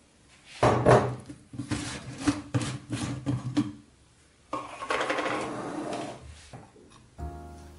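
Knocks and clatters of a large glass storage jar and its red plastic clamp lid being opened and handled on a countertop, followed by a longer scraping rustle as the jar is moved.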